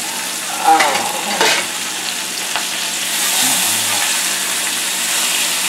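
Flour-coated beef roast and sliced onions sizzling in a hot enameled cast-iron Dutch oven while the onions are stirred with a fork, browning the meat for pot roast. The sizzle gets stronger about three seconds in.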